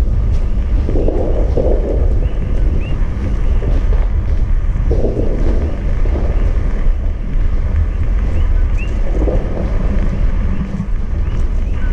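Erupting Kīlauea lava fissure: a loud, steady deep rumble and roar that swells in surges about every four seconds.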